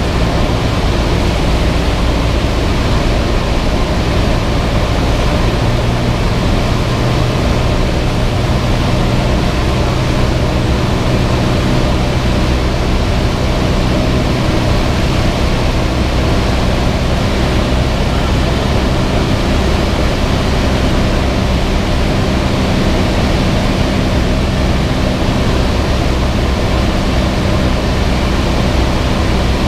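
Cessna 172's piston engine and propeller running steadily, a constant low hum over a hiss of rushing air.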